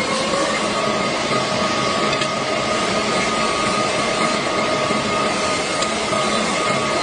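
Metal lathe running steadily, a constant mechanical noise with a high, even whine.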